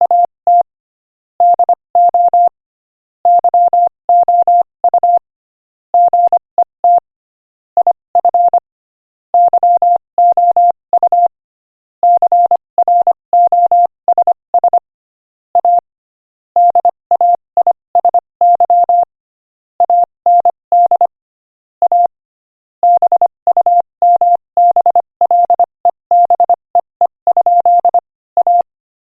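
Morse code sent at 25 words per minute: a single steady beeping tone keyed on and off in quick dots and dashes, with short pauses between words.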